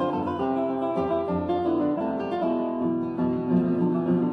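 Instrumental background music led by plucked guitar.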